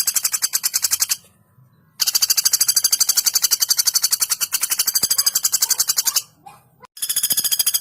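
Female pelatuk bawang woodpecker giving long, rapid rattling call strings of about ten notes a second, in three runs broken by short pauses about one second in and about six seconds in.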